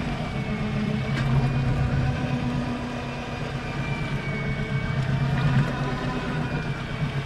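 A fishing boat's engine running steadily, its low note constant over a wash of noise, with a faint high whine that wavers a little in pitch.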